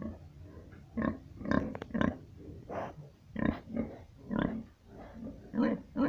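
Domestic pigs grunting: a run of short grunts, about one or two a second.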